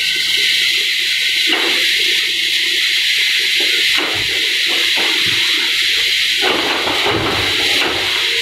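Caterpillar 320B hydraulic excavator demolishing a brick and concrete building: a steady hiss with knocks as concrete and brick break and fall. From about six and a half seconds in, debris falls more heavily with a low rumble.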